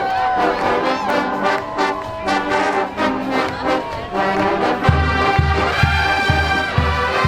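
Marching band brass section playing a tune. About five seconds in, a steady low beat joins at about two a second.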